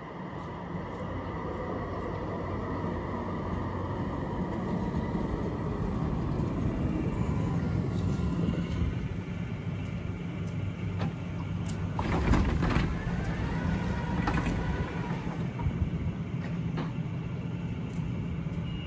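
Stationary Eurotram tram at a stop, its onboard equipment humming steadily. About twelve seconds in comes a louder clatter and thump as its sliding doors close, followed by a few sharp clicks.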